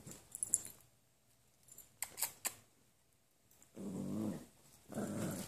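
Small dogs play-wrestling: light scuffling and clicks, then two short growls a second apart near the end, the loudest sounds here.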